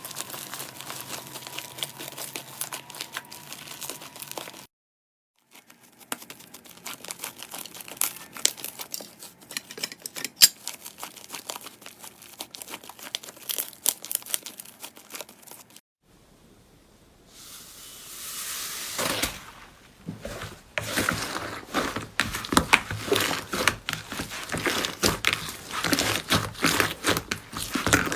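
Slime being squeezed, stretched and pressed by hand, giving dense crackling and popping clicks. The sound breaks off twice briefly, and after the second break a soft hiss rises before the clicking returns louder.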